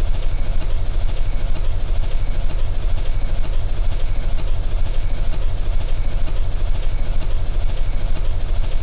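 Steady mechanical droning sound effect with a heavy low rumble, standing in for the rotors of a flying drone.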